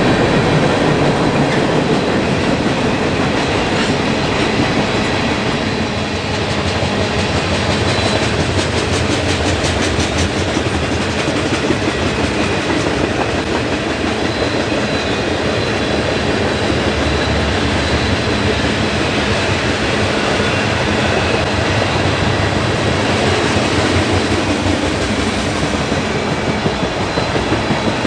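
A long freight train's cars rolling past at speed: a steady rumble of wheels on rail, with rapid clickety-clack of wheels over rail joints, busiest about eight to eleven seconds in.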